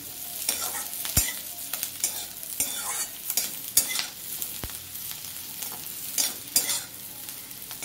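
Chopped capsicum, carrot and green chilli sizzling in butter in a metal kadai while a spatula stirs and scrapes them round the pan in irregular strokes. Two sharp knocks stand out, about a second in and about halfway through.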